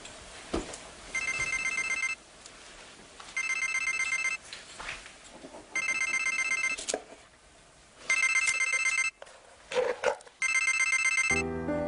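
A phone ringing with a trilling electronic ringtone: five rings about a second long, each a little over a second apart. Music comes in near the end.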